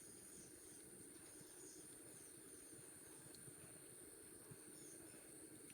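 Near silence outdoors, with a faint steady high-pitched insect drone and faint small chirps over it.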